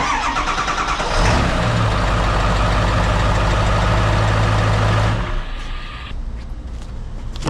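Ford 7.3-litre Powerstroke V8 turbo-diesel running. It steps up to a louder, steady higher speed about a second in, holds there, and drops back about five seconds in.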